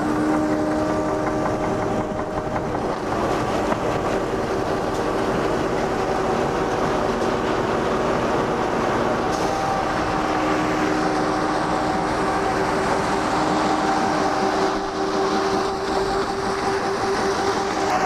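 Volumetric concrete mixer running, its auger churning rock, sand, cement and water into wet concrete that slides down the chute: a loud, steady mechanical rattle and churn with a few steady whining tones over it.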